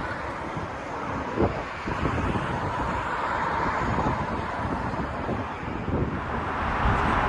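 Jet airliner engines running with a faint steady whine, mixed with wind buffeting the microphone.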